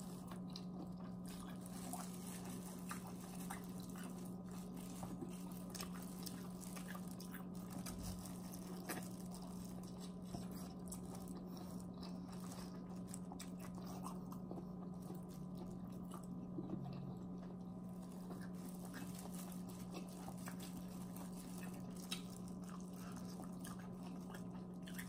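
Soft close-up chewing and biting of seafood-boil food, corn on the cob among it, with scattered small mouth clicks and ticks, over a steady low hum.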